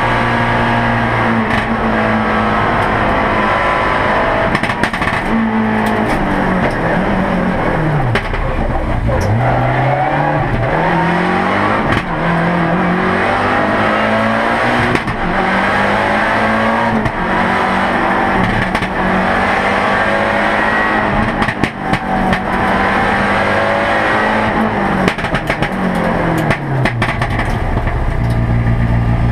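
Lancia Delta rally car's turbocharged engine at full race pace, heard from inside the cabin. Revs climb and fall with repeated gear changes, with one deep drop and climb back about eight seconds in, as it brakes for a bend and accelerates away.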